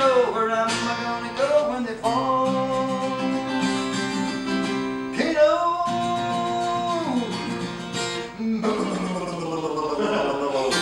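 Live unplugged acoustic guitar and a singing voice closing out a folk-rock song. The voice holds long notes, and the second one slides down about seven seconds in, followed by strummed guitar.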